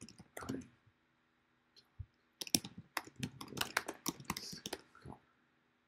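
Typing on a computer keyboard: a quick run of keystrokes from about two and a half seconds in until about five seconds, with a few scattered key taps near the start.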